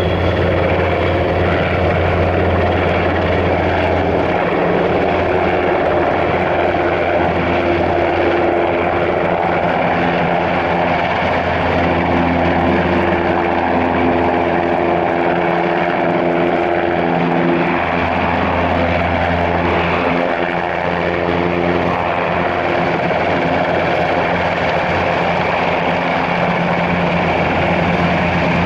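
NHIndustries NH90 twin-turbine helicopter in flight, its four-blade main rotor and turbines running steadily loud. Its held tones shift slightly in pitch as it manoeuvres.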